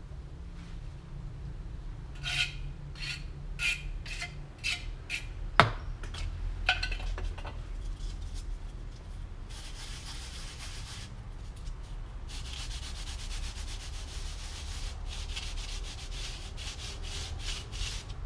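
A hand tool scraping and rubbing on set cement, smoothing the roof edge of a cast-cement miniature house. It starts as a run of about seven short scrapes, has one sharp knock, then becomes steady, quick back-and-forth rubbing.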